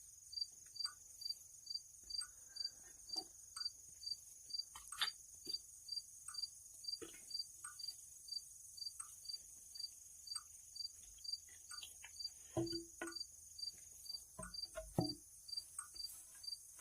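A cricket chirping steadily, about two short high chirps a second, with scattered faint knocks and taps that cluster near the end.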